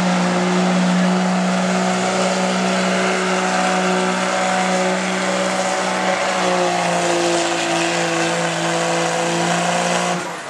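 Diesel pickup engine at full throttle pulling the weight-transfer sled: a loud, steady engine note that dips slightly in pitch about two-thirds of the way through, then drops away abruptly near the end as the throttle is released.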